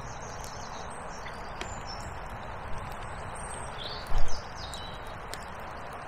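Small birds chirping and singing in short high phrases over a steady rushing background, with one dull thump about four seconds in.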